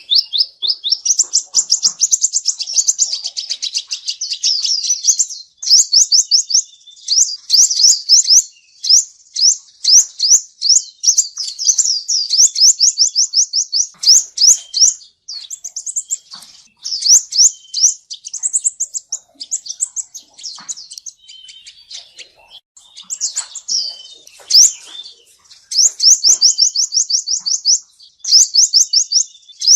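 Male sunbird singing: rapid, high trills of short rising notes, about ten a second, in bursts of a few seconds with brief pauses between them.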